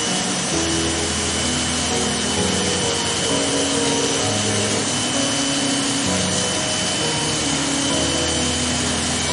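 Electric hair clippers buzzing steadily as they cut short hair on the side of a head, with background music of short held notes underneath.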